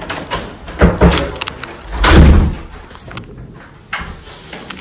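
Washroom doors being pushed open and swinging shut: a knock about a second in and a few latch clicks, then a heavy thud, the loudest sound, just after two seconds, and a smaller knock near the end.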